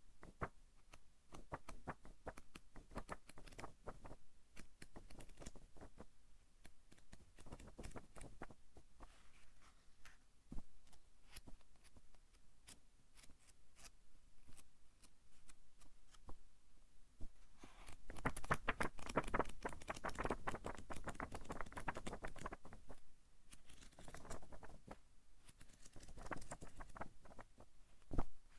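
Pages of a thick-papered book being turned by hand: a steady run of papery rustles and crisp flicks, busiest and loudest about two-thirds of the way through.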